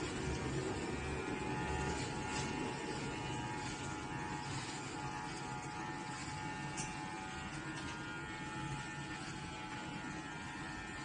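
Electric hair clippers running with a steady buzz while shaving the hair off a head.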